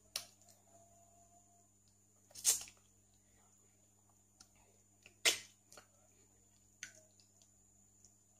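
Close-up wet mouth sounds of someone eating soft durian flesh with her fingers: four short smacks and slurps, the loudest two about two and a half and five seconds in, over a low steady hum.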